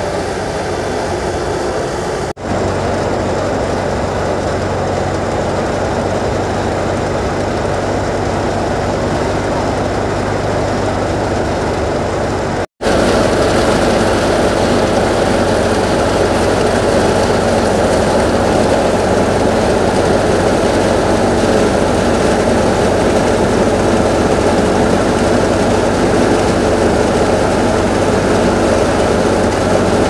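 Tractor-driven wheat thresher running steadily: the tractor engine's steady hum under the dense noise of the spinning threshing drum. The sound cuts out abruptly twice, about two seconds in and near the middle.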